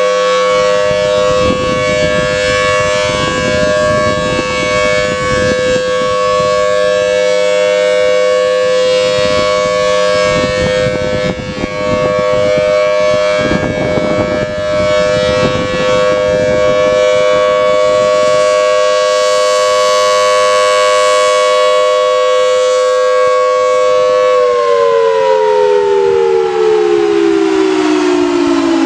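Federal Signal Thunderbolt 1000T civil defense siren sounding a steady two-tone wail as its rotating horn sweeps past. About 24 seconds in it begins its shutdown, the pitch sliding steadily downward as the rotor winds down.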